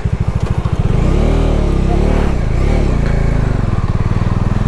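Bajaj Dominar 250's single-cylinder engine ticking over with an even beat, then about a second in it gets louder and revs as the bike pulls away, its pitch rising and falling as it accelerates.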